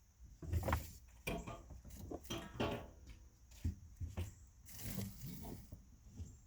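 Scattered knocks, clicks and rustling of objects being handled, with a longer scraping rustle about five seconds in.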